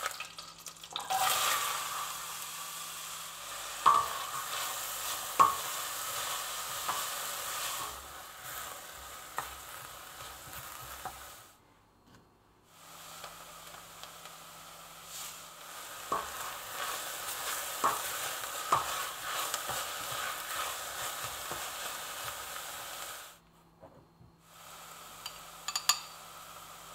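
Chopped onions sizzling in melted butter in a stainless steel pot while being stirred with a spatula, which knocks sharply against the pot now and then. The sizzle drops out briefly twice.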